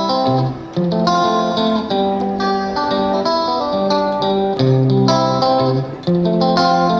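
Background music led by guitar, with plucked notes and chords changing about every half second.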